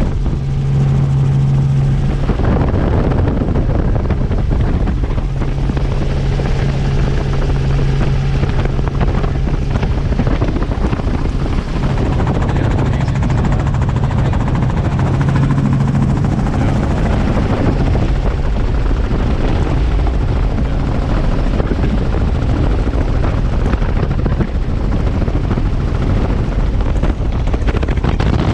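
Helicopter in flight: steady, loud rotor and engine noise, with a low hum that swells and fades every few seconds.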